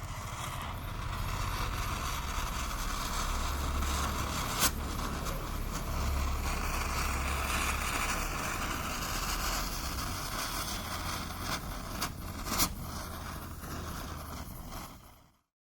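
A twinkling star stick firework burning with a steady fizzing hiss and three sharp cracks, then cutting off suddenly near the end.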